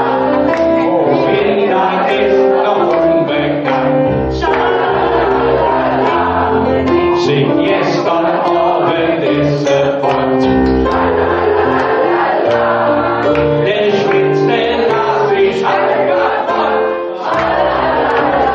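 Live music: a man sings into a microphone over electric piano accompaniment, with other voices in the room singing along.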